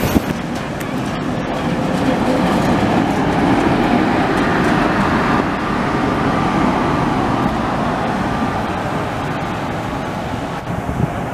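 Vintage tram passing close on street tracks, its wheels rumbling on the rails. The sound is loudest about three to five seconds in, then fades as the tram moves off.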